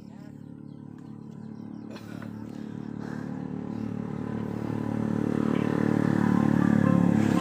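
A motor vehicle engine, steadily running and growing gradually louder.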